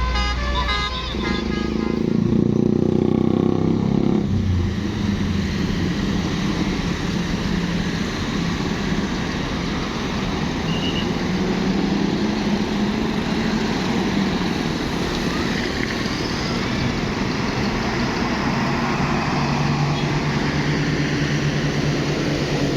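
Buses and motorcycles in jammed road traffic. The last notes of a multi-tone telolet bus horn fade in the first second, a bus engine rumbles loudly about one to four seconds in, and then a steady mix of idling and running engines follows, with a low engine drone near the end.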